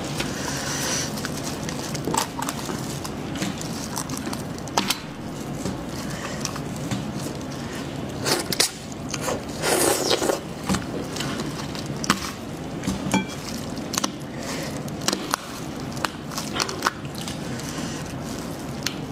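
Clear plastic gloves crinkle as hands pull apart a cooked sheep's head, with wet squelching of meat and many sharp crackles and clicks. Around the middle comes a louder stretch of close, wet chewing.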